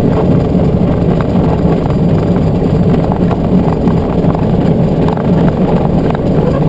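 Vehicle engine and tyres running steadily on a rough dirt road, heard from inside the cab as a constant low rumble, with occasional faint knocks and rattles.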